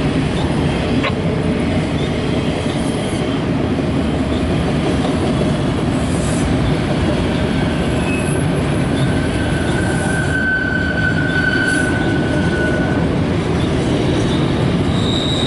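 Loaded autorack freight cars rolling past with a steady, dense rumble of wheels on rail. A high, steady wheel squeal rises out of it for several seconds from about eight seconds in, and a shorter, higher squeal comes near the end.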